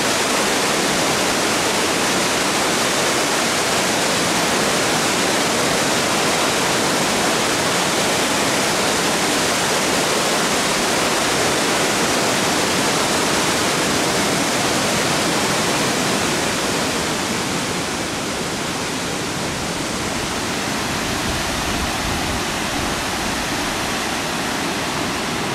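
Nugget Falls, a large waterfall, pouring with a steady, loud rush of falling water. It eases a little about two-thirds of the way through, and a low rumble comes in near the end.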